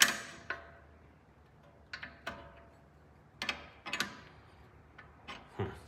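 Hand tools clinking on a sway bar end link: a wrench and Allen key on the link's nut, turned a little at a time. About nine sharp metal clicks, some in quick pairs, each with a brief ring.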